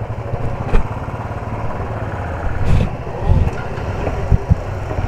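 Motorcycle engine idling with a steady low rumble, with a few dull knocks.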